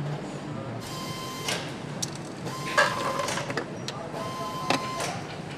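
Engine assembly-line machinery: three bursts of hissing, each carrying a steady tone, with sharp metallic clicks in between.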